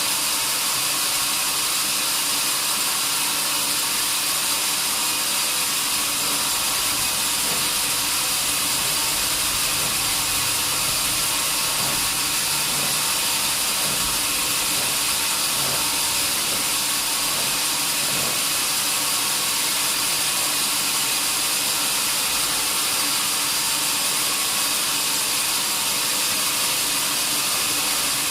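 A sawmill saw running steadily, mostly a high hiss with no breaks or changes in level.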